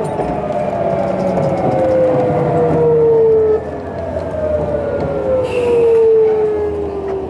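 Hitachi GTO VVVF inverter of a Sotetsu New 7000 series motor car whining with a tone that falls in pitch, steps back up and falls again, three times, as the train slows. Under it run wheel and track rumble and light rail-joint clicks.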